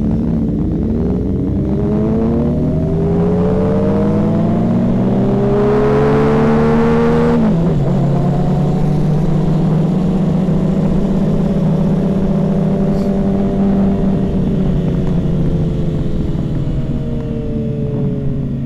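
Motorcycle engine pulling hard, its pitch climbing for about seven seconds under a growing rush of wind. It then drops abruptly and settles to a steady cruising note that eases slightly near the end.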